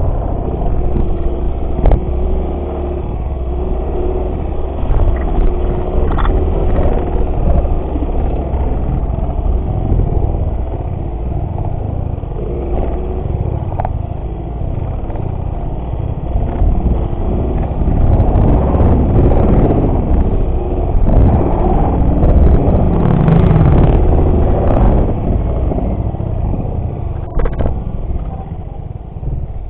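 Small motorcycle engine running while riding over a dirt track, with wind rumbling on the microphone; it gets louder for a stretch about two-thirds of the way through.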